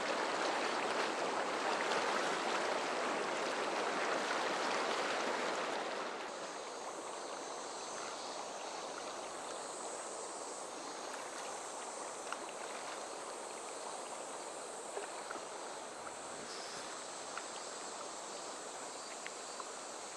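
Rushing water of a fast river current, loud and full at first, then dropping to a quieter, steady flow about six seconds in.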